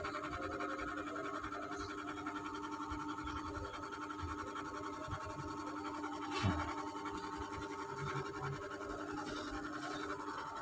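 A faint steady hum of several held tones, with a soft knock about six and a half seconds in.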